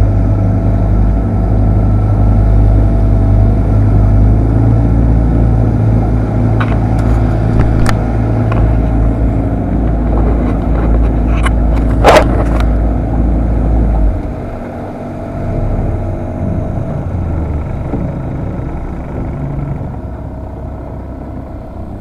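Small fishing boat's motor running steadily under way, with a few sharp knocks in the middle, the loudest about twelve seconds in. About fourteen seconds in the engine's low hum drops off sharply and the sound gets quieter.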